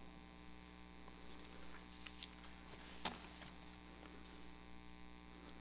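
Steady low electrical hum from a microphone sound system, with faint soft rustles of paper being handled and one short click about three seconds in.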